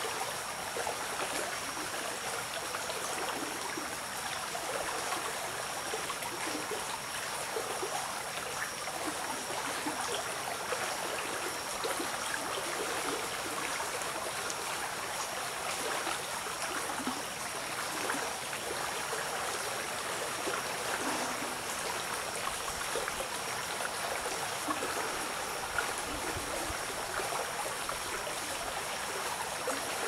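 Shallow forest stream flowing, a steady, even trickle and babble of running water, with a thin, steady high tone faintly above it.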